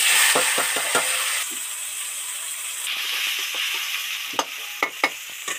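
Sliced onion and tomato dropped into hot oil in a metal kadai: a loud burst of sizzling that starts suddenly and slowly dies down. A metal spatula clinks and scrapes against the pan as the vegetables are stirred.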